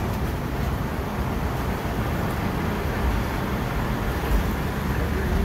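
Steady low rumble of a Hong Kong double-decker tram running along its rails, mixed with surrounding street traffic.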